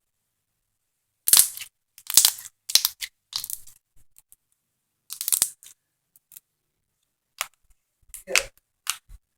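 Slime being squeezed and worked by hand, in about eight irregular, short crackling, squelching bursts.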